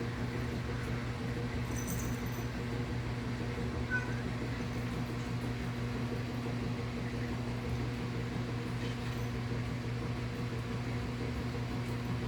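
Steady low mechanical hum, with a single short, faint cat chirp about four seconds in.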